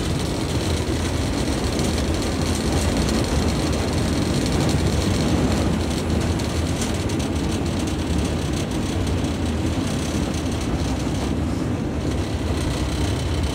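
Class 47 diesel locomotive's Sulzer 12-cylinder engine running steadily under power, heard from inside the driving cab, along with the wheels running over the rails.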